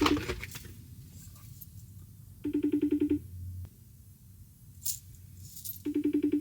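Outgoing phone call ringing out unanswered: a short, rapidly pulsing ring tone repeating about every three and a half seconds.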